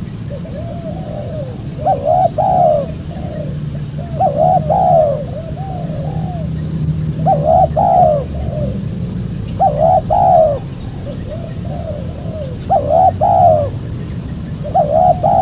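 Spotted dove (tekukur) cooing: a phrase of several quick, arching coos repeated about every two and a half seconds, six times, over a steady low hum.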